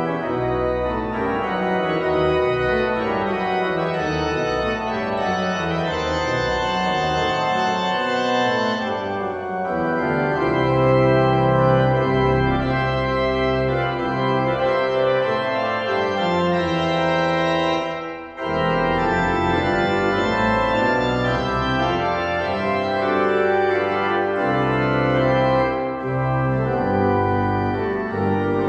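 Church organ playing the closing postlude, sustained chords over a moving bass line, with a brief break about two-thirds of the way through.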